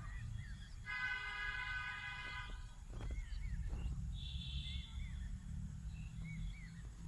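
Small birds chirping with short rising and falling calls. About a second in, a steady pitched tone sounds for under two seconds, over a low rumble.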